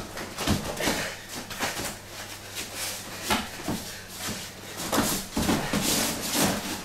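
Wrestling boots scuffing and stamping on a vinyl-covered mat as two wrestlers grapple, an irregular run of short scuffs and thumps.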